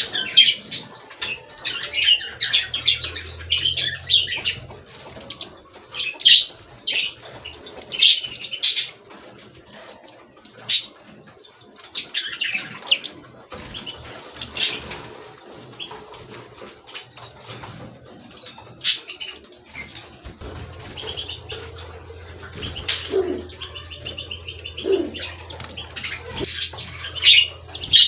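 A group of caged wild finches chirping and calling over one another in short, separate high notes, with bursts of wing fluttering.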